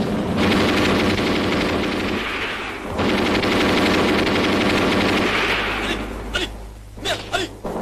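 Battle-scene gunfire: dense, sustained machine-gun and rifle fire in two long stretches, thinning to separate single shots near the end.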